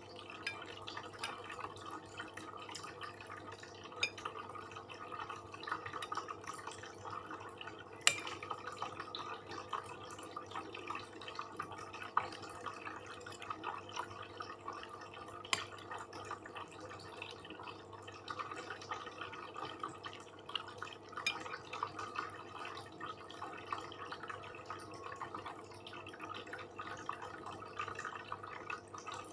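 Close-miked eating sounds: steady chewing with small wet mouth clicks and smacks, and now and then a sharper tick, the loudest about eight seconds in.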